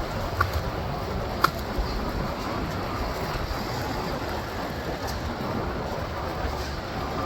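Steady city traffic noise with a low rumble, heard while riding through the streets. Two short, sharp high chirps come in the first second and a half.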